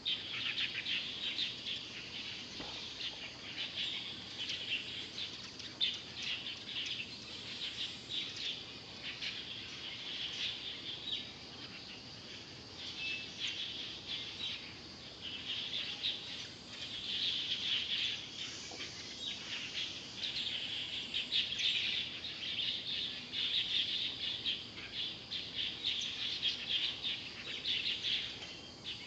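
Small birds chirping and twittering busily and without a break, growing louder and denser in the second half.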